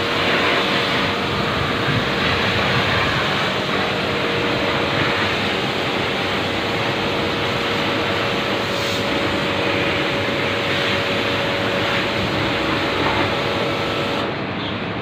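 Pressure washer spraying water onto a refrigeration condensing unit's condenser coil: a steady loud hiss of the jet with a steady hum underneath. The hum stops just before the end.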